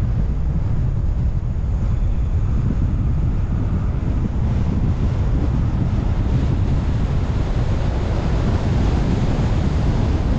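Steady, loud rushing wind and road noise from a car driving along a mountain road, heaviest in the low rumble, with no engine note or other sound standing out.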